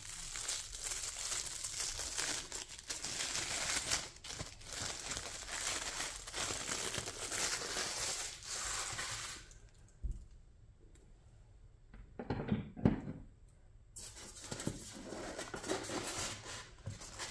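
Packaging crinkling and tearing as diecast model parts are unwrapped by hand. About ten seconds in it goes quiet for a few seconds, broken by a couple of light knocks, then the crinkling starts again.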